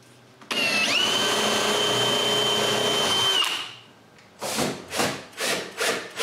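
A power drill spins up and runs steadily for about three seconds, driving the screw for the last drawer pull, then winds down. It is followed by a series of short noisy strokes, about two a second.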